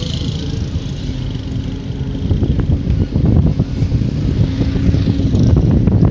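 A motor vehicle on the move, its engine and road rumble steady and low, with wind buffeting the microphone harder and more unevenly from about two seconds in.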